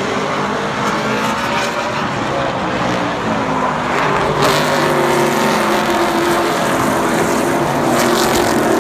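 Several race car engines running at speed together, their pitches overlapping and gliding slightly, with a swell of noise about four and a half seconds in as one comes closer.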